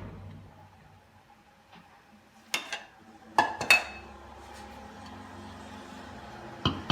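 Utensil clinking against a dish: three sharp clinks with a short ring, one about two and a half seconds in and two close together about a second later, with another clink at the very end.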